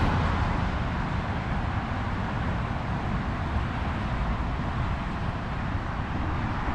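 Steady outdoor rumble of road traffic on a nearby highway, mixed with wind on the microphone.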